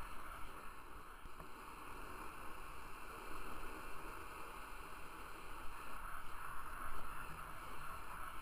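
Small skate wheels rolling steadily over an asphalt path, an even, rough rolling noise picked up right next to the wheels.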